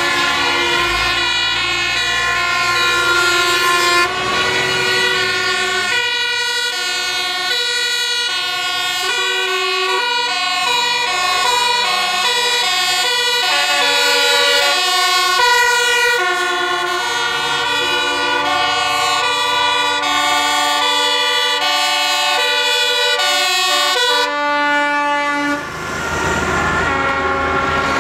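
A fire engine's two-tone siren mixed with parading trucks' air horns, in a run of pitched tones that switch about every half second through most of the clip. Near the end a heavy truck passes close, its engine and tyres covering the horns.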